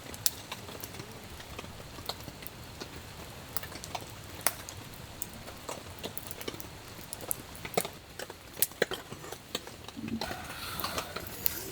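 Wood campfire crackling: irregular sharp pops and snaps over a soft steady hiss.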